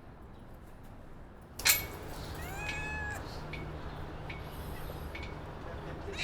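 A sharp knock, then, about a second later, a cat meows once: a short call that rises and falls in pitch.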